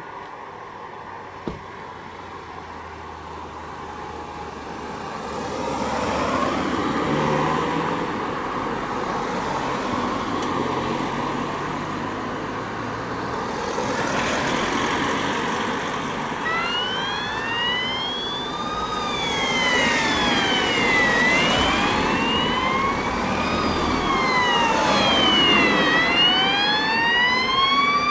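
Road traffic going by, followed from about halfway by the wailing sirens of approaching fire engines. Two sirens rise and fall slowly, about two seconds up and two down, out of step with each other, and grow louder toward the end.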